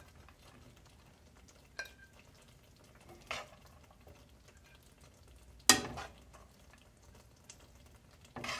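A metal spoon scooping fried rice out of a nonstick frying pan onto a plate, giving four sharp knocks and clinks on the pan and plate, the loudest about two-thirds of the way through.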